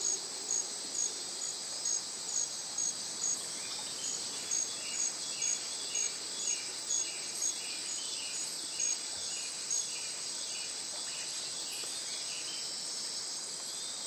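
A chorus of insects: a steady high-pitched drone with short chirps repeating about twice a second. From about four seconds in, a second, lower pulsing chirp joins at a similar rate.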